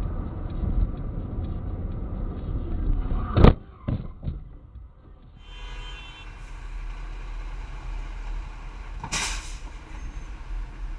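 Road noise inside a car, then a car crash: one loud sharp impact about three and a half seconds in, followed by two smaller knocks. After that, quieter traffic rumble beside a cement mixer truck, with a short sharp hiss of truck air brakes near the end.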